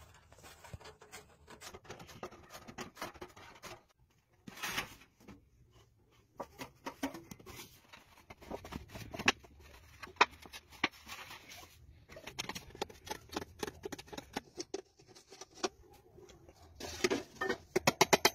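Scattered, irregular light clicks and taps. A fast, rhythmic music beat starts near the end.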